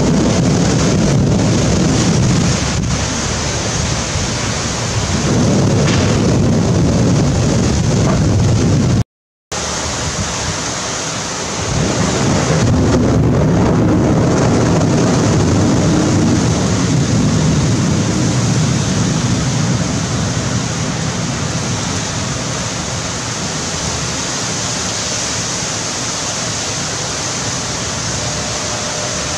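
Heavy rainstorm: a steady rushing hiss of pouring rain in strong gusting wind, with low rumbling swells that come and go every few seconds. The sound cuts out for a moment about nine seconds in.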